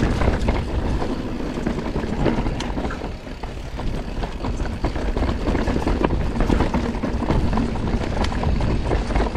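Mountain bike riding fast down a rocky, rooty dirt trail: tyres rumbling over the ground, with frequent short rattles and knocks from the bike over the rocks and a steady low rumble of wind on the microphone.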